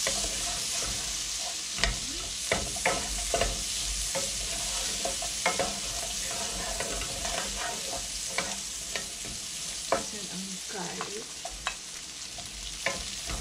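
Chopped onion sizzling in hot oil in a wok, with a steady hiss, while a wooden spatula stirs it, knocking against the pan in irregular sharp taps.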